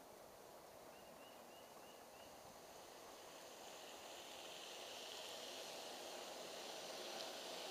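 G-scale model freight train on metal wheels, led by AristoCraft SD45 locomotives, rolling along the track. It is a faint, even rolling noise that grows louder through the second half as the train draws near and passes.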